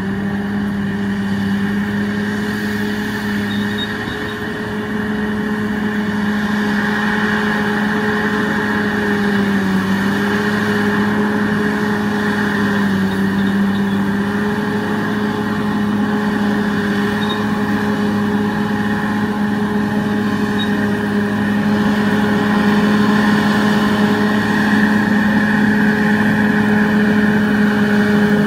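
Crawler bulldozer's diesel engine running steadily under load, its pitch sagging briefly a few times, growing a little louder near the end.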